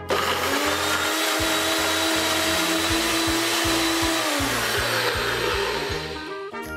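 Personal bullet-style blender running, grinding soaked dates and water into a paste: a loud, steady motor whine that starts suddenly, drops in pitch about four and a half seconds in as the motor spins down, and fades out.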